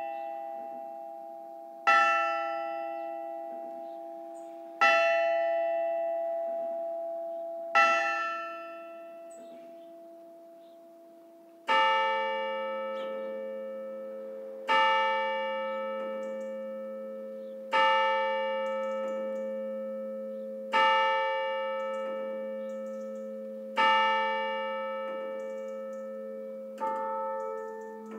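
Parish church bells tolling, one strike about every three seconds, each left to ring and fade. About twelve seconds in, a second, deeper bell takes over at the same slow pace.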